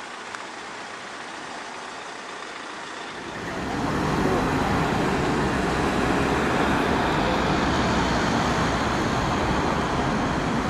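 Road traffic noise: a steady rush of cars in slow-moving traffic. It is faint at first and steps up to a louder, even level about three and a half seconds in.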